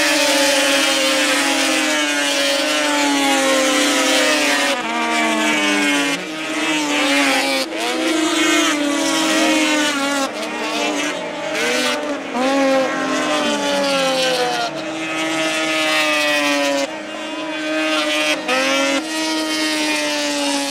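Racing engines at speed: one engine runs steadily while others sweep up and down in pitch as they pass one after another.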